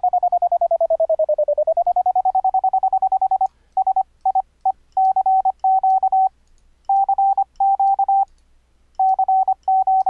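Morse code sine-wave tone near 750 Hz from a software code practice oscillator, keyed on and off by MIDI. It starts as a fast unbroken string of dits whose pitch dips and comes back up about a second in, as the frequency-shifter knob is turned. After about three and a half seconds come Morse characters of dits and dahs with gaps between them.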